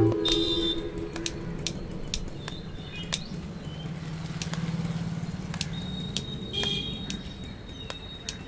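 Faint outdoor ambience after the music stops: scattered short high bird chirps, a few sharp clicks, and a low steady hum that swells in the middle seconds and fades.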